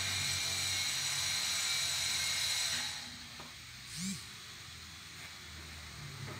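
Steady hiss over a low machine hum from the carbon-cleaning foam hose, falling away about three seconds in as the hose is taken off the cylinder head. A short rising squeak follows about a second later.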